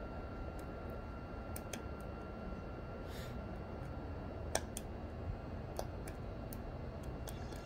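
BioLite CampStove 2 burning wood with its fan running on the medium setting: a steady whir with a faint high whine, and scattered sharp crackles from the wood fire, the loudest about four and a half seconds in.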